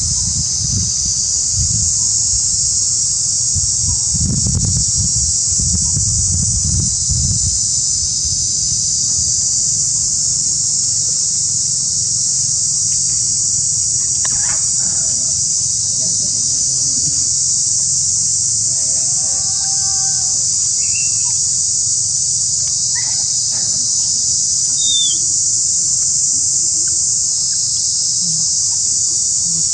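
A loud, steady, high-pitched insect chorus. A low rumble sits under it for roughly the first eight seconds, and a few faint short calls come in the second half.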